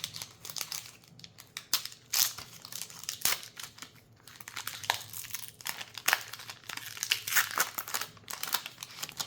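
Foil wrapper of a Magic: The Gathering collector booster pack crinkling and tearing as it is opened, in dense, irregular crackles with sharp snaps.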